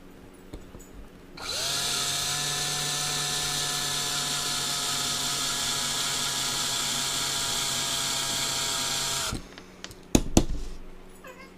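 Small electric hand drill drilling out the rivet post on a die-cast toy car's base: the motor spins up about a second and a half in, runs at a steady whine for about eight seconds, then stops. A few sharp knocks follow about a second later.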